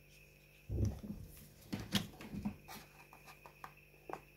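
Cardboard packaging being handled: the earphones' paper holder and the phone box, with scattered clicks and rustles. A few low muffled sounds come in among them, the loudest about a second in.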